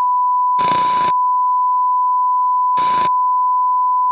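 Steady, unbroken test-tone beep of the kind played with TV colour bars, loud and constant in pitch. Two short bursts of static hiss break in, one about half a second in and one near three seconds in.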